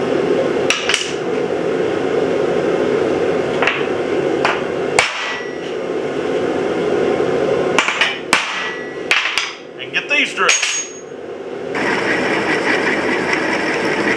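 A hammer tapping a center punch into steel channel iron: a dozen or so separate sharp metallic strikes at an uneven pace, deepening the punch marks for drilling. In the last couple of seconds a drill press runs with a steady whir.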